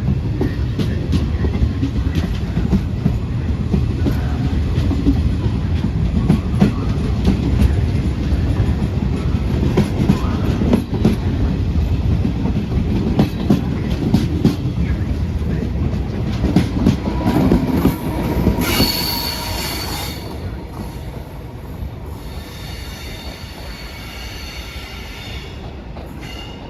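Train passing close by: a heavy rumble of wheels on rails with repeated knocks at the rail joints, which come from the track rather than a flat wheel. About two-thirds of the way in, a loud, high wheel squeal rises for a couple of seconds. The rumble then dies away, leaving a fainter squeal.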